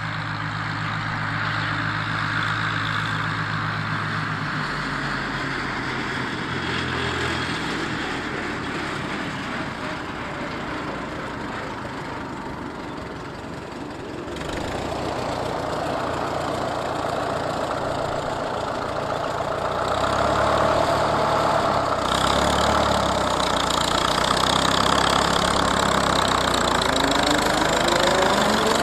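McCormick-Deering W-6 tractor's four-cylinder engine running steadily as the tractor drives along the road, growing louder in the last third.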